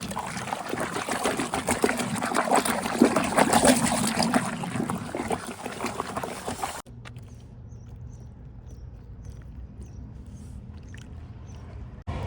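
Water spray from a washing hose splashing and spattering against the excavator's body for about seven seconds, then cutting off suddenly. After that comes a quieter steady low hum with a few faint, short high chirps.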